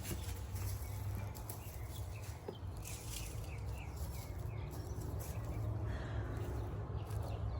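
Outdoor garden ambience: a steady low rumble with scattered clicks and rustles of hands working in plants and soil, and a few short bird chirps about halfway through.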